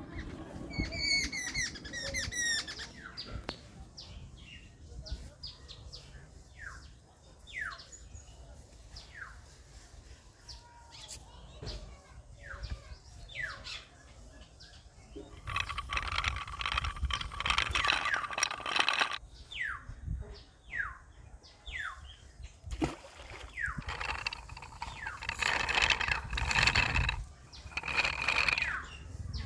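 Birds chirping in short, repeated falling calls, with two louder, longer noisy stretches about halfway through and near the end.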